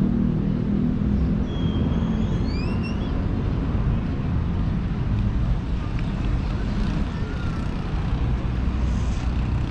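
Street traffic rumbling steadily, with a vehicle engine's hum fading out over the first few seconds. A few short, high, upward-gliding chirps come about two seconds in.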